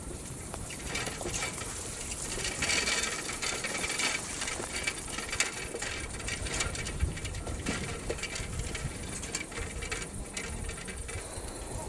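Quick footsteps through grass, with the grass swishing and scattered small clicks and rubbing throughout.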